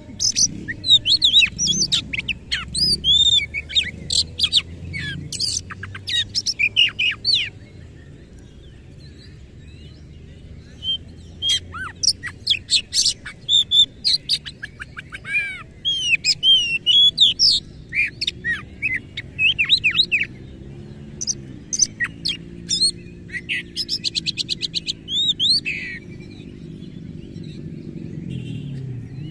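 Oriental magpie-robin (kacer) singing in loud bursts of rapid, varied whistles and rough chattering mimicked phrases, the 'isian kasar' that keepers prize. The song pauses for a few seconds after about seven seconds, then resumes, and ends in a fast run of repeated notes near the end.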